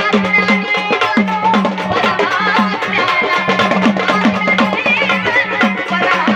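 Instrumental break in a Marathi folk song: a hand drum plays a quick, even rhythm whose deep strokes bend in pitch, over a steady drone and a wavering melody.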